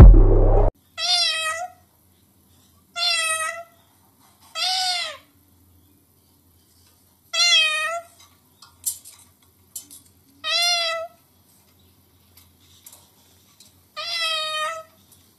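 A white, yellow-crested cockatoo mimicking a cat's meow: six separate meows, each about half a second long, rising then falling in pitch, spaced a second or more apart. The tail of loud music cuts off within the first second.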